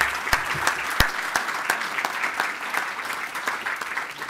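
Audience applauding: many people clapping at once in a dense, steady run.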